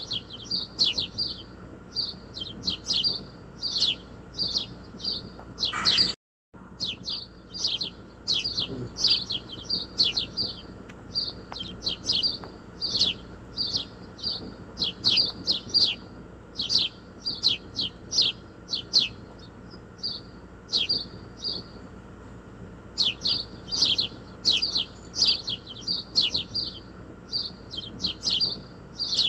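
Graphite pencil shading on paper: quick scratchy strokes, about three a second, in short runs with brief pauses. The sound drops out for a moment about six seconds in.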